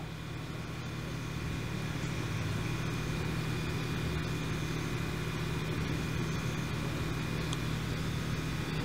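A steady low hum of running machinery, with no clicks or beeps over it; it grows slightly louder over the first couple of seconds.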